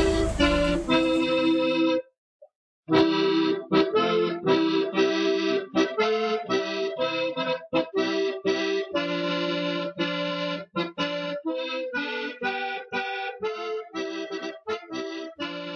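Accordion music: a lively tune of short, repeated chords, breaking off briefly about two seconds in and then carrying on. The noise of a running machine fades out under it in the first second or so.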